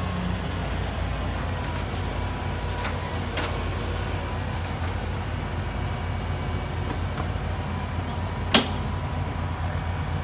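Heavy diesel machinery running steadily, with a few light metallic clinks and one sharp clank about eight and a half seconds in, from the chained steel track panel hanging from the crane.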